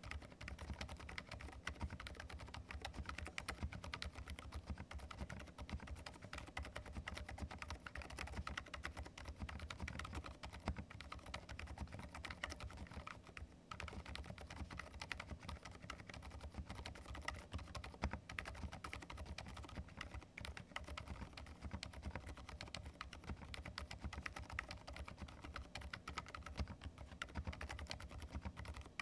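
Continuous fast typing on a Thinkway Tauche.T 301 mechanical keyboard fitted with Peach Soda silent linear switches: faint, very quiet keystrokes in a dense run, with one brief pause about halfway through.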